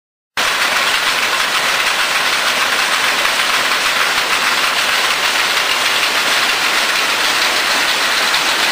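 Schiffli embroidery machine with a retrofitted servo drive running at about 130 RPM: a loud, steady, dense mechanical noise that starts abruptly about a third of a second in.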